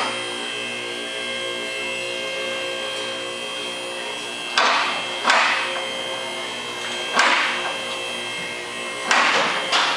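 A steady mechanical hum, with five sharp metallic clanks in the second half.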